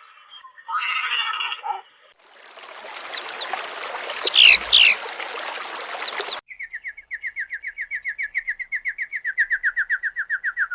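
Animal calls in sequence: a short call, then birds chirping over background hiss, then a fast, even trill of about ten notes a second that slowly falls in pitch.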